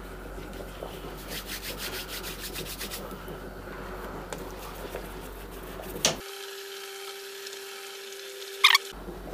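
Hands rolling bread dough into a long rope on a granite countertop: a faint, rhythmic rubbing. A brief sharp squeak near the end is the loudest sound.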